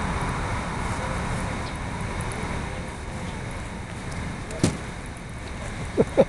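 Steady hum of road traffic, with one sharp click about four and a half seconds in and a quick run of short, loud chirps near the end.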